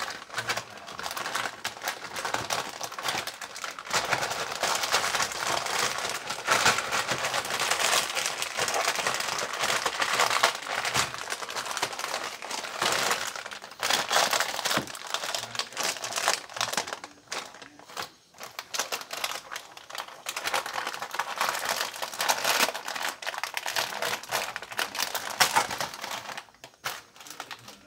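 Plastic instant-noodle packaging crinkling and crackling as hands handle the opened bag and dig the sachets out of it, on and off with a few short pauses.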